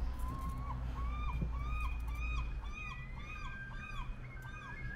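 Birds calling: a run of about eight short, arched, clear call notes, roughly two a second, with a second bird's higher notes overlapping, over a steady low rumble.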